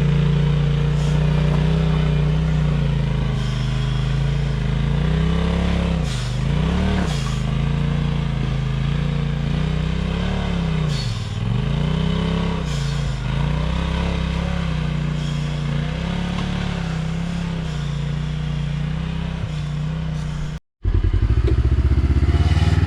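Side-by-side UTV engine running under steady throttle, its pitch dipping and climbing back twice as the revs fall and rise. Near the end the sound breaks off for a moment, and a lower, pulsing engine note follows.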